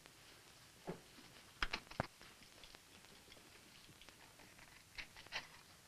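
Faint clicks and rustles of a handbag being handled as the mirror is taken off its outside flap, bunched about two seconds in and again near the end.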